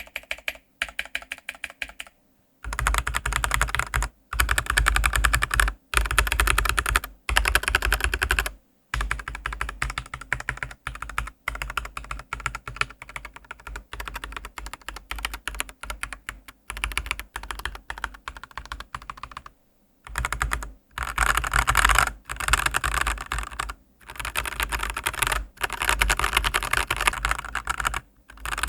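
Typing test on a Dareu A87 mechanical keyboard fitted with stock Blue Sky linear switches: fast runs of high-pitched, clacky keystrokes, broken by a few short pauses.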